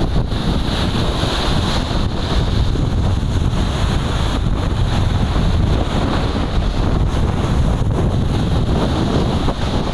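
Strong wind blowing across the microphone: a loud, steady rushing noise with heavy low rumble and no let-up.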